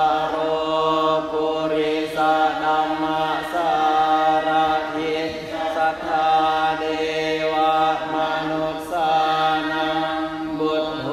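Thai Buddhist monks and lay followers chanting Pali in unison during evening chanting. It is a steady recitation held on nearly one pitch, phrase after phrase, with short breaks between phrases every second or two.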